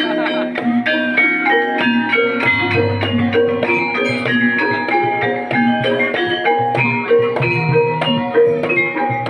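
Banyumasan gamelan music accompanying an ebeg trance dance: mallet-struck pitched instruments play a fast, steadily repeating melody.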